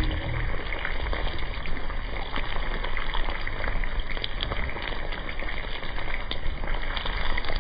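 Butter-basted chicken sizzling on a fire-heated rock: a steady hiss with scattered small crackles.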